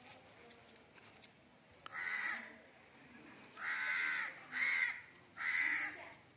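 A crow cawing four times, the first about two seconds in and the rest close together in the second half, each caw short and harsh.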